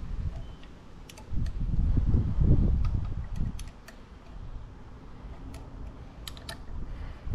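Scattered light metallic ticks and clicks of a small hex key and bolts against an outboard's stator plate as the bolts are fitted by hand. A low rumble comes and goes, loudest between about one and three and a half seconds in.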